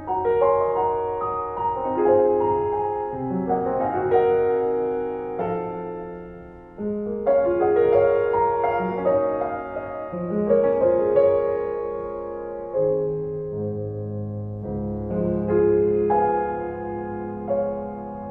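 Background piano music, slow notes and chords.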